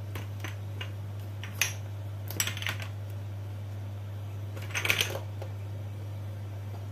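Light clinks and taps of a metal spoon and a glass sauce bottle being handled over a plastic mixing bowl, in three short groups, the busiest near the end, over a steady low hum.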